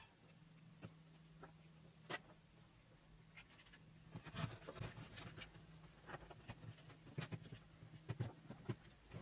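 Faint clicks and scrapes of hands working a small screwdriver on a plastic light-bulb holder, then handling the holder and its cable. A few single sharp clicks come in the first half and a busier run of clicks and rustles from about halfway on, over a low steady hum.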